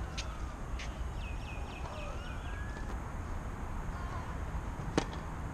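A tennis racket strikes the ball once, sharply, about five seconds in: the serve. Under it runs a steady low outdoor rumble.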